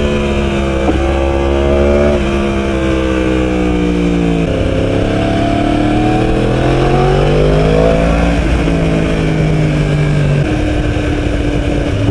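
Decatted Yamaha R1's inline-four engine and exhaust under way, the note climbing with the throttle and dropping in steps at several gear changes.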